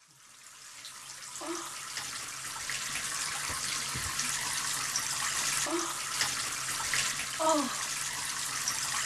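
Water running in a bathtub, a steady rush that fades in over the first couple of seconds, with a woman's short contented moans three times: about a second and a half in, near six seconds, and at seven and a half.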